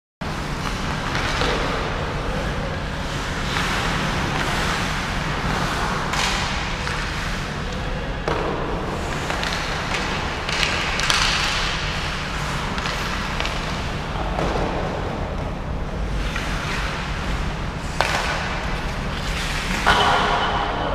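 Ice hockey game sounds in a rink: skates scraping and swishing on the ice, with stick and puck clacks over a steady low hum. Sharp knocks come about 18 and 20 seconds in.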